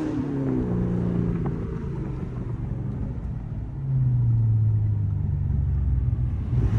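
Car engine running with a low, steady exhaust note that grows louder about four seconds in.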